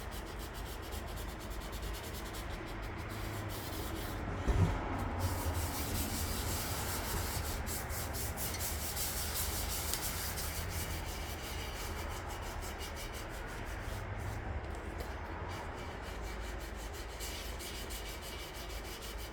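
Sandpaper rubbed back and forth by hand over the primed hood of a 1958 Johnson outboard, a steady scratching rub, with one brief knock about four and a half seconds in.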